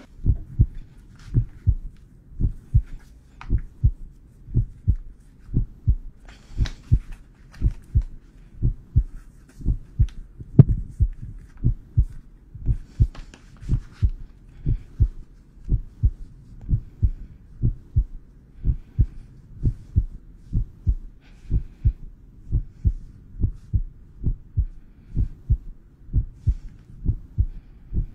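Heartbeat sound effect: low, muffled thumps repeating in a steady, even rhythm.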